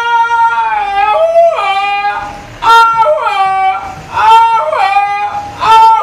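Panamanian grito: a man's high, yodel-like shouted cry, held notes that break and slide down in pitch, given several times in quick succession.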